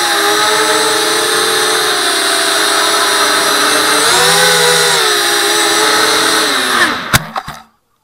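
Brushless motors and propellers of a ZMR250 racing quadcopter (Emax 2204 2300kv motors on a 4S lipo) whining, the pitch rising and falling with the throttle. About seven seconds in come a few sharp knocks as the quad hits the ground, and the motors stop.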